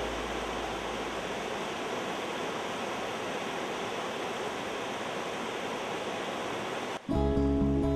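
Rushing white water of a forest stream's rapids, a steady hiss. Music starts abruptly near the end.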